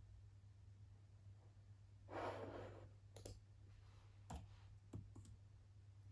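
Computer mouse clicking: about five short, light clicks in the second half, after a soft breathy rush lasting under a second. All of it sits over a faint low hum.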